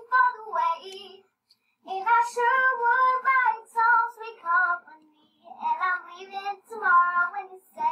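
A young girl singing unaccompanied, in three sung phrases with short breaks between them.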